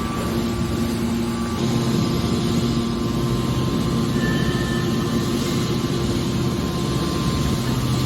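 Hydraulic scrap-metal baler running: the steady hum and whine of its motor and hydraulic pump over a mechanical rumble, with a lower tone joining about a second and a half in.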